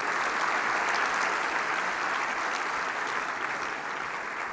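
Audience applauding, a dense wash of many hands clapping that begins to taper off near the end.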